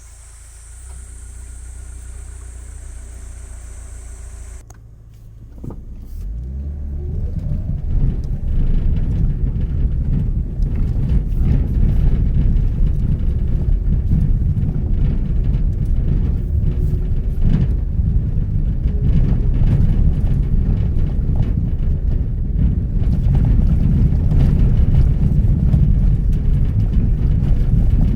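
Mitsubishi Pajero Mini under way: a quieter steady hum at first, then from about six seconds a loud, rough low rumble of the vehicle driving that continues.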